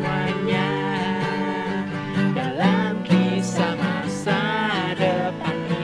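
Live acoustic band music: acoustic guitars played under a sung melody.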